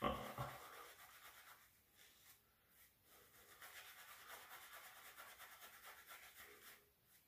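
A shaving brush being worked over the cheek to build lather: faint, soft bristle rubbing and swishing in repeated strokes.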